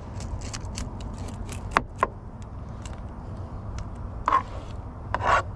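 Metal spoon scraping scales off a fish on a plastic cutting board: a run of quick scratchy strokes and clicks, two sharper clicks about two seconds in, and longer rasping scrapes near the end. A steady low rumble runs underneath.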